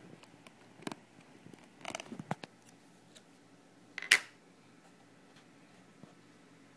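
Handling noise from the hand-held phone: a light tap about a second in, a few small clicks and knocks around two seconds in, and one sharp click about four seconds in, over quiet room tone.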